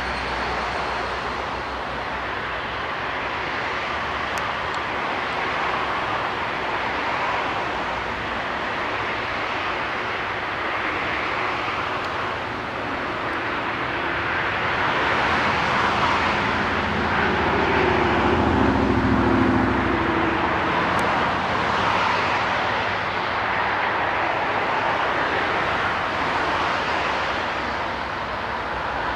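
Aircraft jet engines running, a steady rushing that swells for several seconds past the middle.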